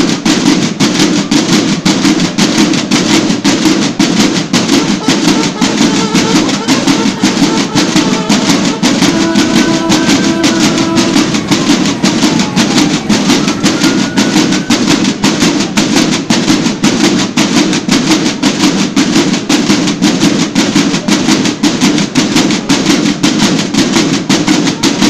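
Parade marching-band drums, snares and bass drum, beating a fast, steady marching rhythm.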